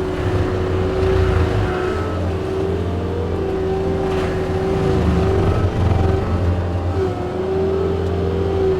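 Hydraulic forestry mulcher head spinning at full speed, a steady high whine over the diesel engine of the compact machine driving it at high throttle. The whine sags briefly a few times as the drum bites into wood.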